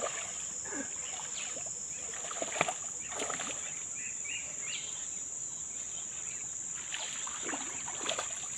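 A hooked giant snakehead (toman) splashing and thrashing as it is reeled in toward the bank, in short irregular bursts, loudest near the end. A steady high insect buzz runs underneath.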